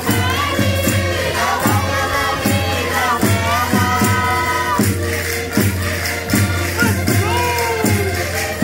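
A Portuguese rusga folk group singing a popular song together, mostly women's voices, over a steady drum beat with metallic jingling percussion.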